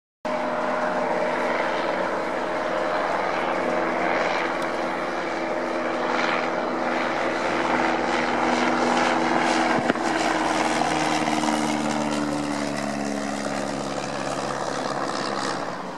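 Cessna 172R's four-cylinder Lycoming engine and two-blade propeller running at high power as the plane climbs away on a go-around. The engine tone drops in pitch as it passes, about ten to twelve seconds in.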